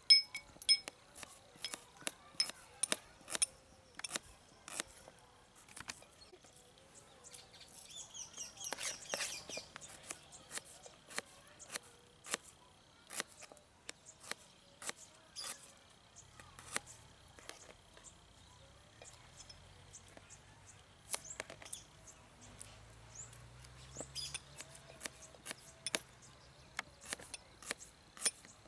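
Kitchen knife slicing onions on a plastic tray: a string of short, sharp, irregular taps as the blade cuts through and strikes the tray. Birds chirp faintly in the background.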